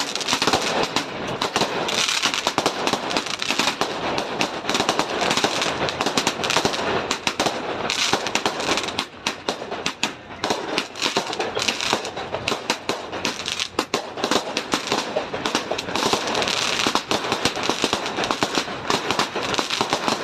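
String of firecrackers going off in a rapid, continuous volley of sharp cracks.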